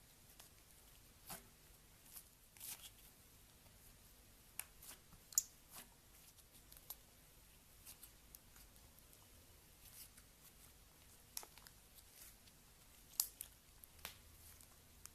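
Slime being handled and squeezed: scattered, irregular soft pops and crackles against a quiet background, with a sharper pop about five seconds in and another near the end.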